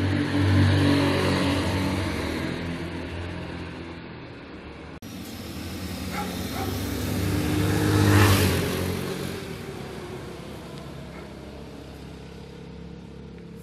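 Two Axxo Viper 180cc motor scooters riding past, their engines loudest about half a second in and then fading. A second pass-by grows louder, peaks about eight seconds in and fades away.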